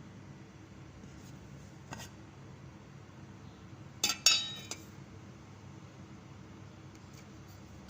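Metal clinks against a cooking pot as the mung bean soup is stirred or checked. There is a single clink about 2 seconds in, a loud quick pair just after 4 seconds, and a lighter one soon after, over a low steady background.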